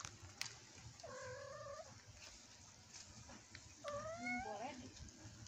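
A cat meowing twice: a level call about a second in, then a second call near the end that rises in pitch.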